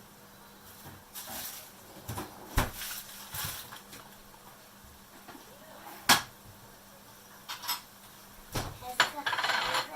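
Kitchen clatter: pots, dishes and utensils knocked and set down, several separate sharp clinks and knocks, with a short rush of noise just before the end.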